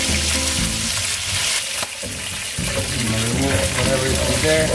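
Chicken pieces sizzling as they brown in hot oil in a stainless steel sauté pan, with a utensil stirring and lifting the pieces out of the fat.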